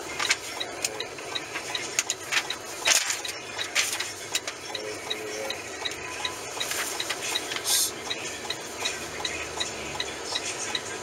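Inside a semi-truck cab: steady engine and road noise, with scattered knocks and rattles from the cab, the loudest about three seconds in. A faint, quick, even ticking repeats about three times a second.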